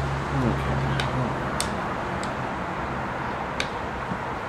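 A ball-end screwdriver working a small screw loose on a model engine: a few short, light clicks spaced about half a second to a second apart, over steady background noise with a low hum in the first second.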